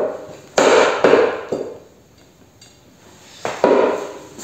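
Homemade coil-spring stool clanking under a man's weight: sharp metallic knocks with a short ring, three about half a second apart, then a pause and two more near the end.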